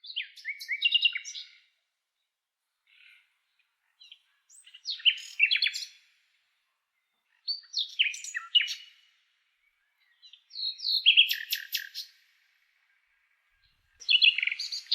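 A songbird singing in short, varied phrases about a second or two long with pauses between, mixing clear whistles with rapid repeated notes and a buzzy trill near the end.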